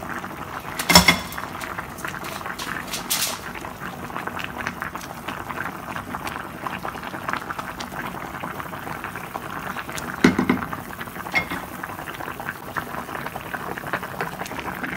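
A pot of vegetable soup at a rolling boil, bubbling steadily, with a few knocks of utensils against the pot as green onions go in and the soup is stirred with a wooden spatula. The loudest knock comes about a second in.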